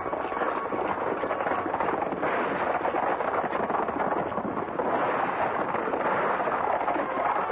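Several horses galloping hard: a dense, steady clatter of hoofbeats.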